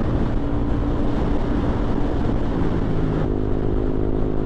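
Yamaha scooter engine running steadily at cruising speed, under heavy wind rumble on the microphone. About three seconds in, the engine hum turns into a steadier, clearer tone.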